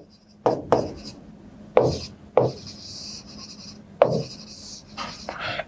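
A stylus taps and drags across the glass of an interactive touchscreen board. There are several sharp taps, about half a second in, near 2 s and at 4 s, and a scratchy stroke between them.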